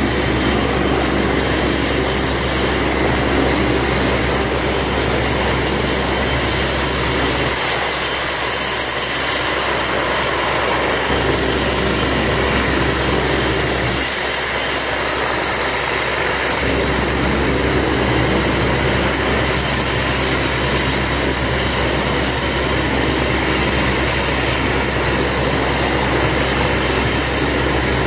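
Helicopter running on the ground: a steady turbine noise with a constant high-pitched whine over a low rumble, which eases briefly twice.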